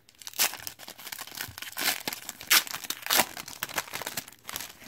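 Foil wrapper of a 2019 Panini Elite football card pack being torn open and crinkled by hand, a run of sharp crackles with several louder rips.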